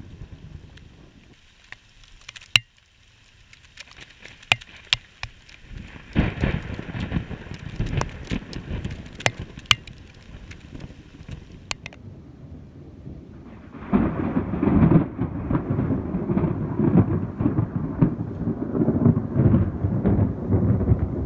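Rain, with sharp ticks of raindrops striking the camera and a low rumble of thunder. A little past halfway a louder, long roll of thunder begins and goes on rumbling.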